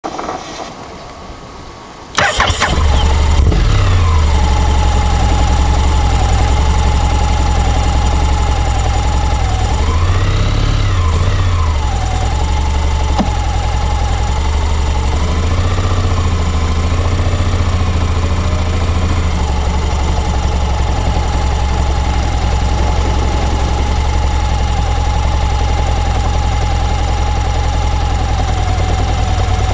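Honda X-ADV 750 parallel-twin engine starting about two seconds in, then idling, revved briefly twice near the middle. A steady high whine runs over the engine sound throughout.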